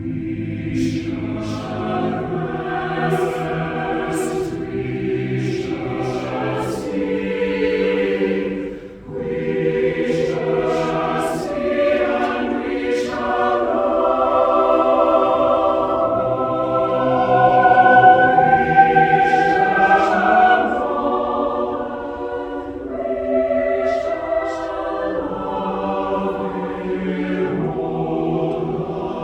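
A choir singing sustained chords in several parts, with a short break about nine seconds in.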